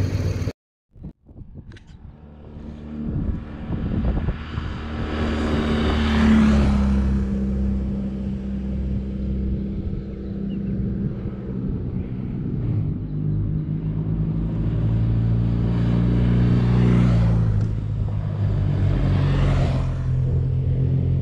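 BMW R1200GS boxer-twin motorcycles riding past on a gravel road: each engine note builds, then drops in pitch as the bike goes by, with a rush of tyre and wind noise. One passes about six seconds in and more pass near the end.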